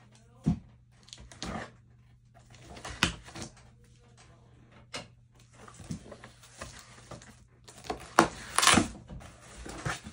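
Cardboard shipping box being handled and opened: scattered knocks and taps on the cardboard, then a louder rustle of cardboard about eight seconds in as the flaps are pulled open.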